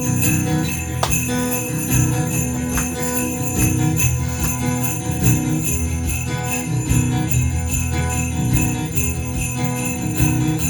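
Live band playing an instrumental song intro, with sleigh bells shaken steadily over the beat.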